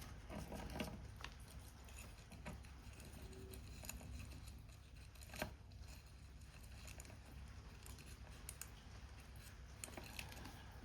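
Scissors snipping papercraft card, with the paper being handled, in small scattered clicks and a sharper click about five seconds in; rain patters faintly behind.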